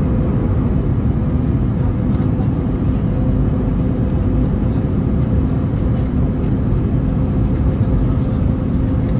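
Steady airliner cabin noise inside an Airbus A321neo: a constant low rush of engines and airflow with a faint steady hum running through it.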